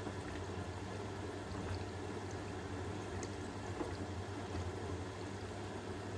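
Hoover H-WASH 500 front-loading washing machine running mid-way through a Cotton 60 cycle: a steady wash of water in the drum over a low, even hum.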